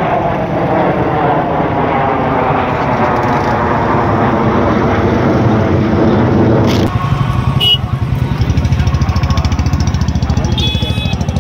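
An engine running steadily close by. About seven seconds in, the sound changes abruptly to a fast, regular pulsing.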